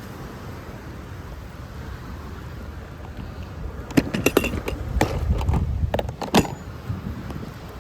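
Wind rumbling on the microphone throughout. About four seconds in comes a run of sharp clicks and knocks, lasting two to three seconds and louder than the wind.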